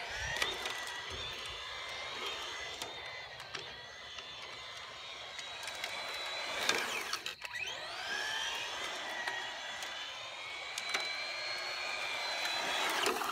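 Electric RC car's motor and gears whining as it drives on asphalt, the pitch rising and falling with the throttle. About seven seconds in the whine drops away briefly and then climbs again.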